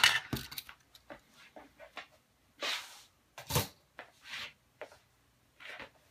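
Hard plastic Mini 4WD body shell unclipped and lifted off its chassis with a sharp click, followed by scattered light plastic clicks, knocks and short brushing sounds as the parts are moved about on a wooden desk.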